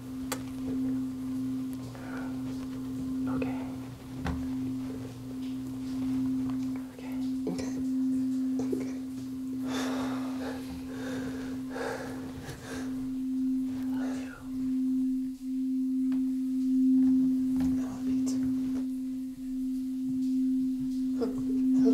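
A single sustained low tone in the film's score, with a fainter tone an octave below, held steady with slight swells like a singing-bowl drone. Faint breaths and sniffles of crying come and go beneath it, most noticeable about ten seconds in.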